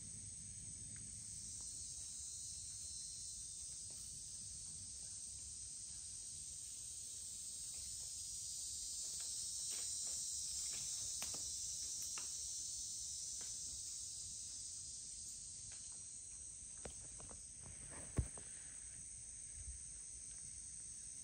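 A steady, high-pitched chorus of insects trilling, with scattered faint ticks and rustles through the middle and one sharper click near the end.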